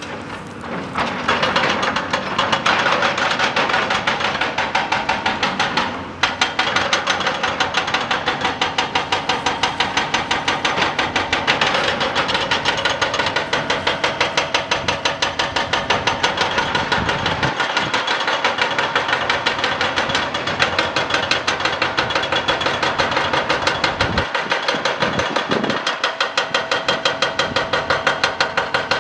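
Excavator-mounted hydraulic rock breaker hammering rock in a rapid, steady stream of blows, starting about a second in with a brief break near six seconds.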